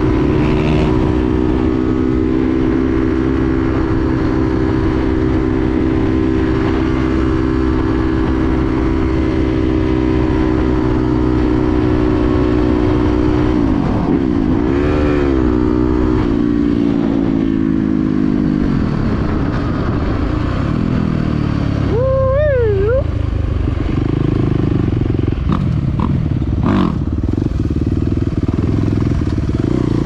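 Yamaha dirt bike engine running at a steady cruising speed on pavement, with a brief blip of revs about halfway through, then the revs falling away as the bike slows to low speed. A short wavering squeal follows a few seconds later, and a few sharp clicks come near the end.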